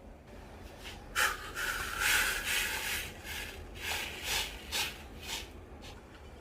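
A spoon or spatula scraping and stirring chocolate as it melts in a bowl over a water bath. The sound is a run of short scraping strokes, starting about a second in and easing off near the end.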